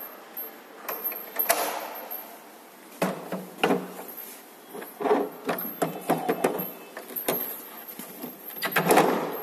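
Metal clicks and knocks from LED display cabinets being handled and fastened with their quick-lock levers. About eight or nine irregular clacks, with a louder, longer clatter near the end.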